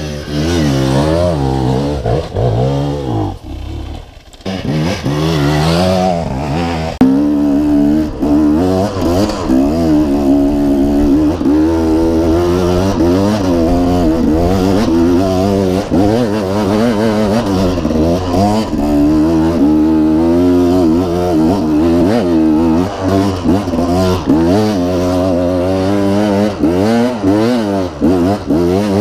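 KTM enduro dirt bike engine being ridden hard, its revs rising and falling constantly with the throttle over rough, steep trail. The throttle eases briefly about four seconds in, then the engine runs louder from about seven seconds on.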